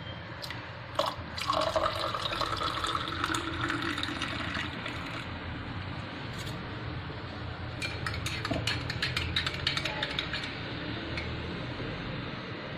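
Liquid being poured into a container, its pitch rising slightly as it fills, then a quick run of small clinks about eight seconds in.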